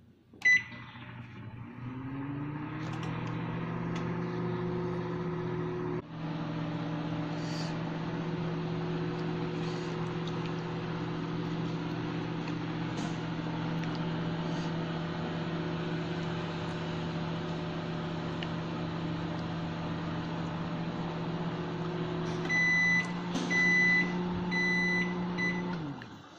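Microwave oven started from its keypad: one beep, then the oven's hum rises in pitch as it spins up and runs steadily. Near the end come about four beeps, and the hum falls away as the oven stops.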